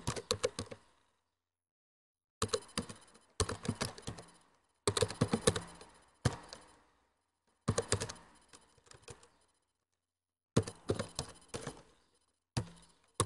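Typing on a computer keyboard: quick runs of keystrokes in several short bursts, with pauses of about a second between them.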